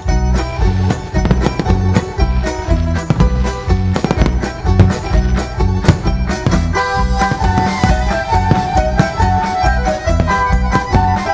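Loud music with a strong steady beat, a higher wavering melody coming in about seven seconds in, with firework bangs and crackles mixed in among the beats.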